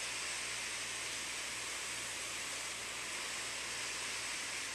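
Steady hiss of background noise, even throughout, with no distinct events.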